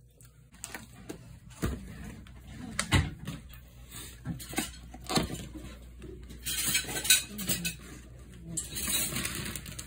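Plastic takeout containers being handled and opened: irregular clattering knocks and the crackle of plastic lids, loudest around the middle and again near the end.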